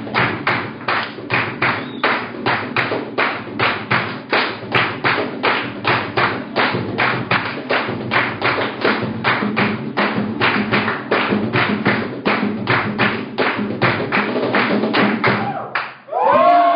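Live acoustic music: acoustic guitars strummed over a cajón beating a steady pulse of about three strokes a second. The music stops near the end, followed by a short whoop.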